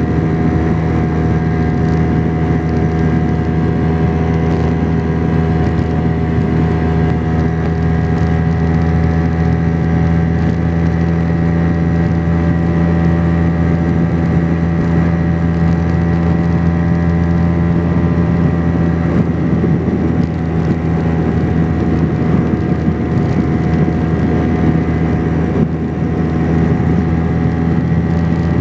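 Vespa PX 125's single-cylinder two-stroke engine running steadily at an even cruising speed, heard from on board the moving scooter.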